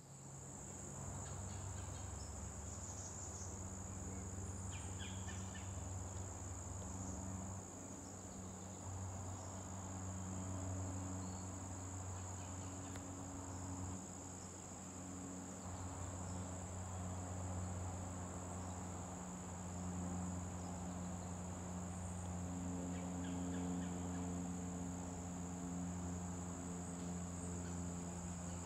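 Insects trilling in one steady, unbroken high-pitched chorus, with a low droning hum underneath that shifts in pitch and strength.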